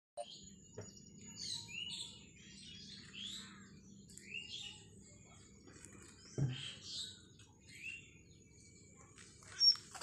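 Alexandrine parakeets giving a run of short, rising chirps, with a sharp louder call near the end. A single soft knock comes a little past six seconds in.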